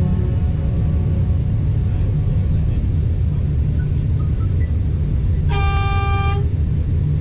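Train running with a steady low rumble, and one short horn toot lasting about a second near the end.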